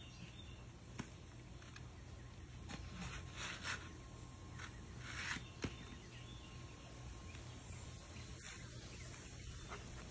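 Quiet, with a few short faint scrapes and light taps as a capuchin monkey works patching compound onto a garden goose statue with a small flat stick.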